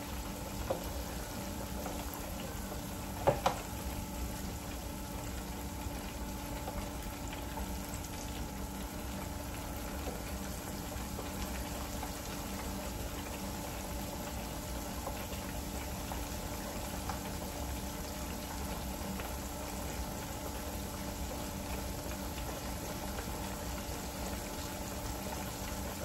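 Breaded pork chops deep-frying in hot oil in an electric deep fryer: a steady bubbling sizzle, with a brief sharp knock about three seconds in.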